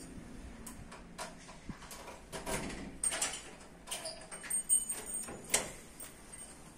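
Footsteps on paving tiles with scattered light clicks and knocks at an irregular pace, and a few sharper clicks in the second half.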